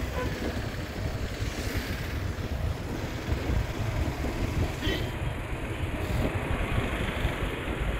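Riding noise from a moving motorbike: a steady low rumble of wind buffeting the microphone, mixed with road and engine noise.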